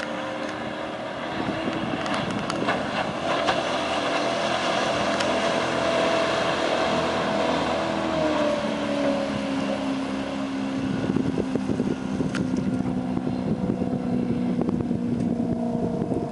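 A 2003 Regal 2200 LSR runabout's engine running under way, over the rush of water and wind. The engine gets louder about a second in, then its pitch drops around the middle as the throttle eases back, and it runs on steadily at lower revs.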